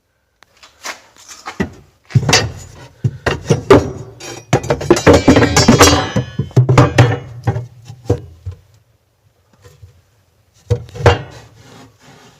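Old carpentry hand tools being handled: a dense run of wooden and metal knocks, clatter and scraping for several seconds, then a few more knocks near the end.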